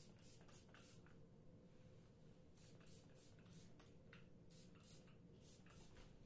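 Faint, short hissing spritzes of a hand-pump spray bottle of hair product being sprayed onto hair, repeated many times, over quiet bathroom room tone.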